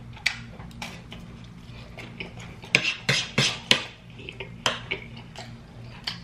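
Metal spoon clinking and scraping on a plate while eating, a string of sharp clicks, the loudest coming in a cluster about three to five seconds in, over a faint steady low hum.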